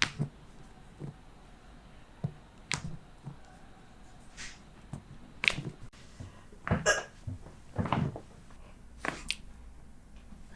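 Several sharp cracks and pops at irregular intervals, a few seconds apart: joints cavitating during chiropractic adjustments.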